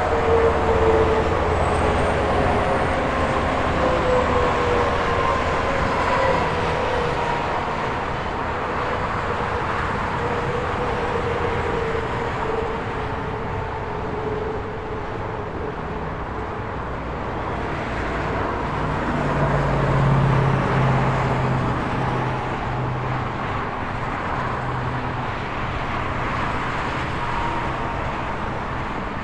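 Steady highway traffic: a continuous rush of tyres and engines as cars and trucks pass. About twenty seconds in, one passing vehicle swells louder with a low engine hum.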